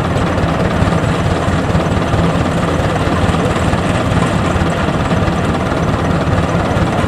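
Yanmar YH85 rice combine harvester's diesel engine running steadily, a low even hum with no change in speed.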